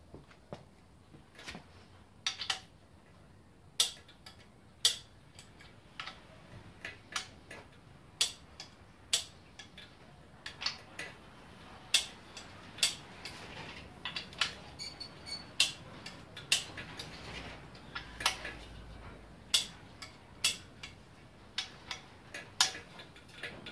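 Sharp metallic clicks, one every second or so at uneven spacing, as the main bearing cap bolts on a Ford 351 Cleveland V8 block are torqued down: a click-type torque wrench breaking as each bolt reaches torque, mixed with the clink of the tool on the caps.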